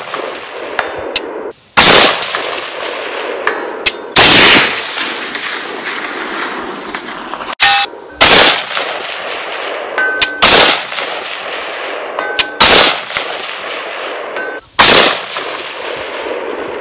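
ATI Alpha Maxx polymer AR-15 rifle firing single aimed shots, about six of them roughly two seconds apart, each with a short echo. Faint metallic rings follow some of the shots, typical of bullets striking steel targets downrange.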